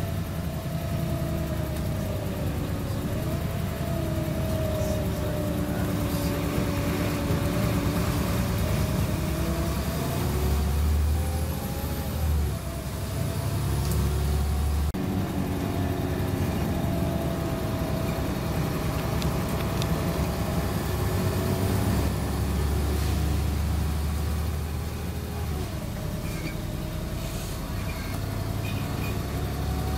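Inside a Wright StreetCar (Volvo B7LA) articulated diesel bus on the move: a steady low engine rumble with a drivetrain whine that sinks and climbs in pitch several times as the bus slows and speeds up. Faint rattles of the body and fittings sound now and then.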